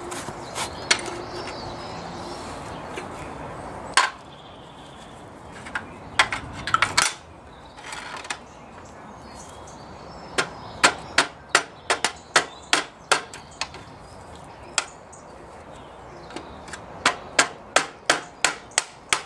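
Hammer tapping steel at a Jaguar E-type's rear brake caliper, working a seized part loose: a few scattered clinks of tools first, then two runs of quick, light, even taps, about three a second.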